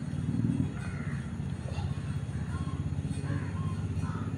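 Crows cawing several times over a steady low rumble.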